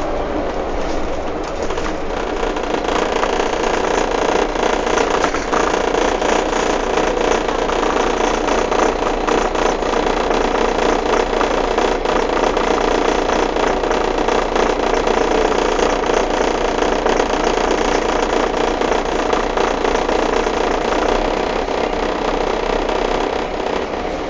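Scania K310 city bus heard from inside the cabin while driving: a steady diesel engine drone with a constant clatter of small rattles. It gets a little louder in the first few seconds and eases slightly near the end.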